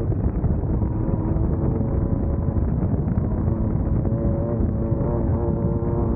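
Class 1600 off-road race car's air-cooled VW engine running hard at a fairly steady pitch, over a heavy rumble from the car pounding along rough ground, muffled.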